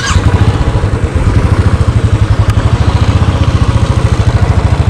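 Royal Enfield motorcycle engine running steadily under way, with an even, rapid beat.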